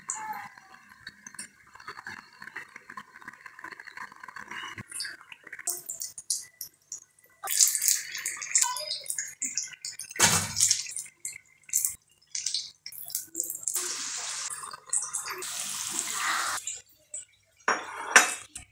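Samosas deep-frying in a pan of hot cooking oil, sizzling steadily at first, then louder and in stretches that start and stop abruptly from about six seconds in.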